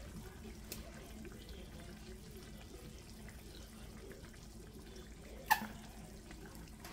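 Plastic ketchup squeeze bottle squirting ketchup onto a meatloaf: faint squelching, with one louder, sharp sound about five and a half seconds in.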